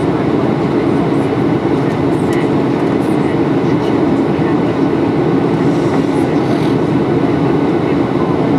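Steady, even cabin noise inside a Boeing 737-800 in flight, heard from a window seat over the wing: the drone of its CFM56-7B turbofan engines mixed with airflow rumble, deep and unchanging.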